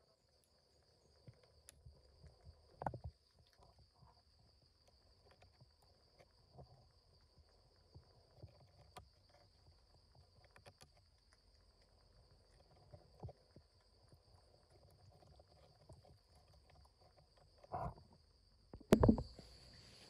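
A steady high-pitched hum with faint scattered knocks and rustling. A louder sharp knock comes near the end.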